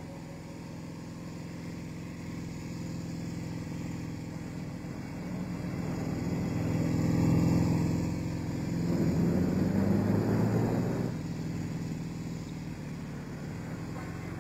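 Car engine running as a car goes by. It swells over several seconds, is loudest in the middle, then fades.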